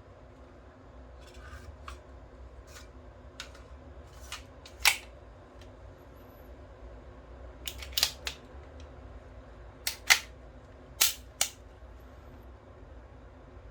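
Toy Beretta M9 pistol being worked: about a dozen sharp mechanical clicks and snaps in small irregular groups, the loudest about five seconds in and again about ten seconds in.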